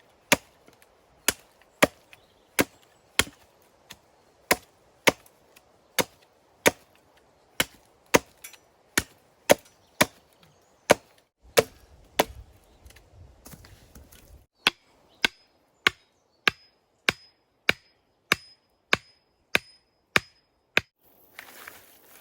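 Wood being chopped with an axe: a steady run of sharp blows, about one and a half a second. Near the end the blows stop and a short rustle follows.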